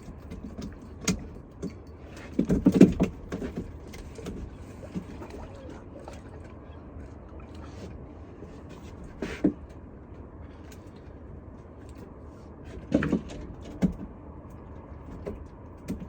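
Scattered knocks and clatters of gear being handled in a small fishing boat, the loudest cluster about three seconds in and single knocks around nine and thirteen seconds, over a steady low rumble.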